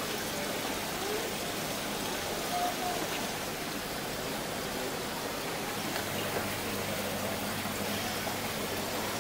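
Steady watery hiss of aquarium tanks, their air bubblers and filters running.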